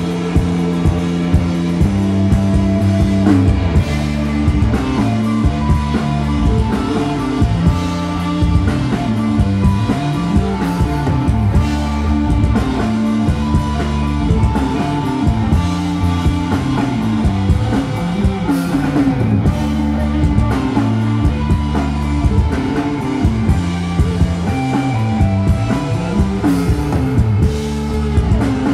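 Live instrumental psychedelic rock played by a full band: electric guitar, bass guitar and drum kit, with steady drum hits under moving bass lines.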